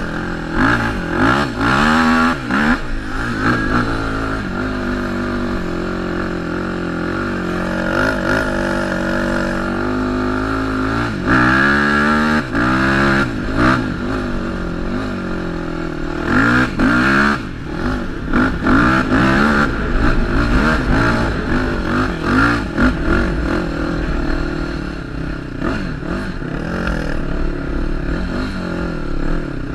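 Sport quad ATV engine running hard, revving up and easing off over and over as the throttle is worked, with several long climbing revs.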